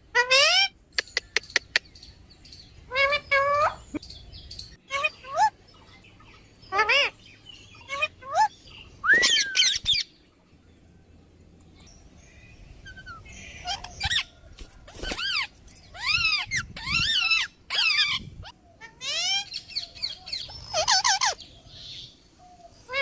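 Parrot calling in a series of short squawks whose pitch bends, coming in clusters, with a few sharp clicks about a second in.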